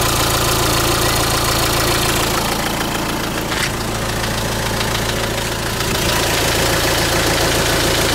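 Renault Trafic 1.9 dCi four-cylinder diesel engine idling with a rhythmic knock from inside the engine. The owner cannot say what causes it: it sounds like an injector or a worn connecting-rod bearing, and pulling the injectors one at a time weakens it but does not stop it.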